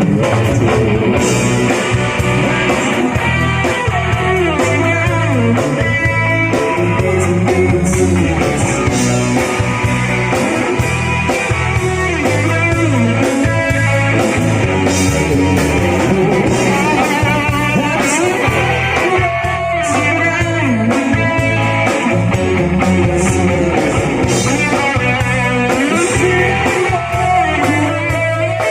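Rock music with guitar over bass and drums, playing steadily and loudly, with bending guitar notes.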